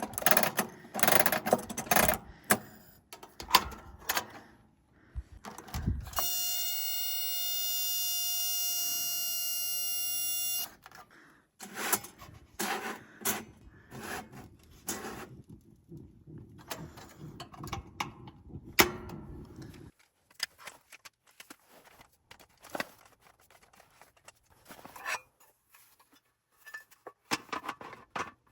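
Gear being handled in a tent: a run of clicks, knocks and rustles, broken by a steady pitched tone that holds for about four seconds after the first quarter, then a longer stretch of rustling and scattered small clicks.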